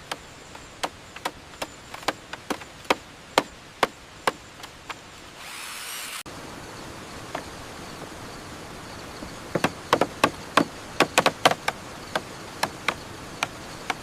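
Chopping: sharp, separate strikes of a tool on wood, about two a second at first, then after a brief hiss a faster run of strikes in the last few seconds.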